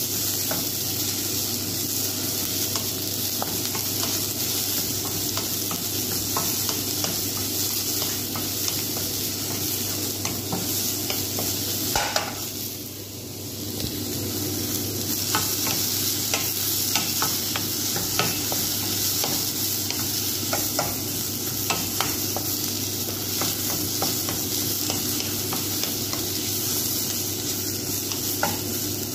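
Sliced onions sizzling in a little oil in a nonstick wok while a wooden spatula stirs them, with small clicks and scrapes against the pan. The sizzle drops briefly about halfway through.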